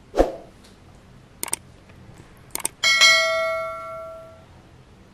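A dull thump at the start, then quick clicks and a single bell chime that rings out for about a second and a half: the sound effect of an on-screen subscribe-button and notification-bell animation.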